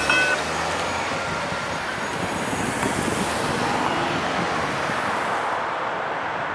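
Railroad crossing warning bell giving its last strokes just at the start and then stopping, as the signal deactivates, leaving a steady noise of road traffic.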